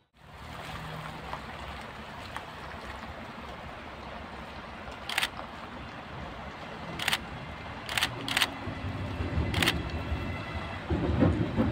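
Siemens Vectron electric locomotive approaching along the track, its low rumble building and growing loud near the end. About five short, sharp hissing clicks come from about halfway through.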